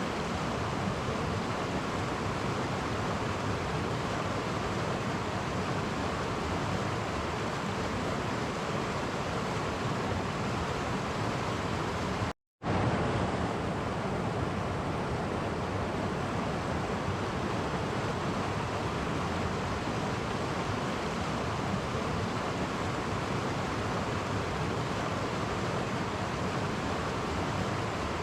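Clear-water stream rushing steadily over small cascades. The sound cuts out completely for a moment about halfway through.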